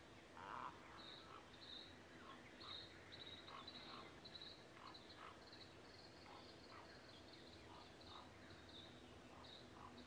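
Faint outdoor ambience: a run of short high chirps, several a second, with scattered lower pips over a faint steady low hum.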